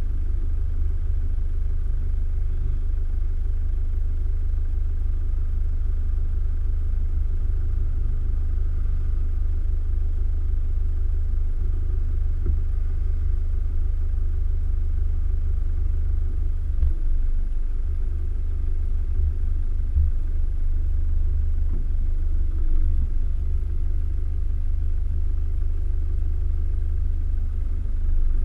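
Steady low rumble of a Toyota Hilux Vigo driving over sand dunes, picked up by a camera mounted outside on the vehicle, with a few brief heavier low thumps near the end.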